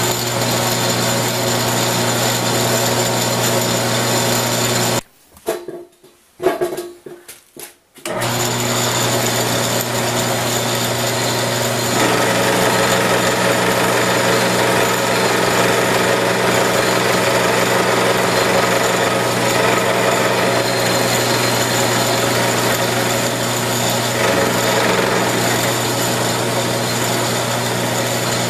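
Vertical milling machine running with an end mill, a steady machine hum while taking a cut to mill a hex flat on a small round bar held in a collet block. About five seconds in the sound drops out for roughly three seconds, with a few clicks, then the machine runs on, the sound growing fuller from about twelve seconds in.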